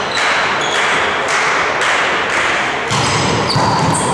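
Volleyball play on an indoor court: a series of irregular thuds from the ball being hit and bouncing, over general hall noise.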